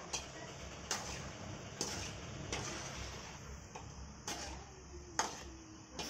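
Kala jamun deep-frying in oil in a steel kadai on low flame, the oil sizzling steadily, while a metal spatula clinks against the pan about seven times at uneven intervals, loudest about five seconds in.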